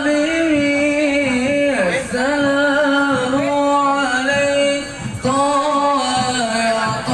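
A single voice singing a slow song in long held notes, breaking for breath about two seconds in and again about five seconds in.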